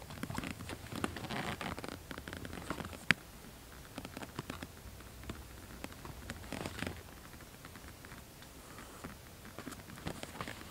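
Green canvas rucksack being packed and fastened by hand: fabric rustling and straps being pulled and adjusted, with small clicks and one sharp click about three seconds in.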